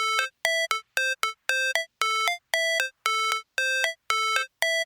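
Synthesized music: a simple melody of short, clipped electronic notes repeating about two or three times a second, alternating between a lower and a slightly higher note.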